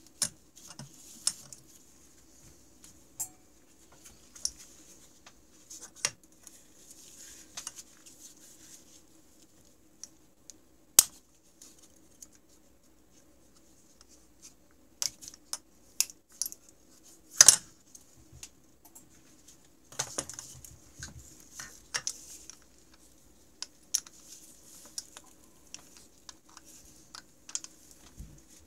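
Scattered sharp metal clicks and light taps from hand work on two-stroke snowmobile pistons as the circlips and wrist pins are taken out, with the rustle of rubber gloves between them. A faint steady hum runs underneath.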